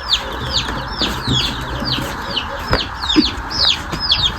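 Several Brahma chickens calling, a dense run of short, high peeps that slide downward in pitch, about four or five a second, from more than one bird at once.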